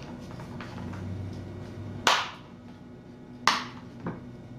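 Two sharp clicks about a second and a half apart, then a fainter one, with small ticks before them: a small screwdriver and the netbook's plastic memory cover being handled while a cover screw is driven in.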